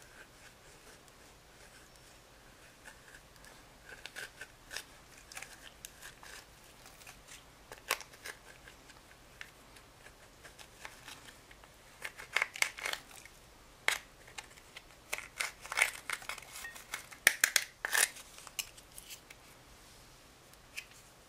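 A small metal spoon scraping and gouging pressed blue powder makeup in a plastic compact. The crumbling powder gives irregular scratchy scrapes and clicks, sparse at first and in quick dense runs in the second half.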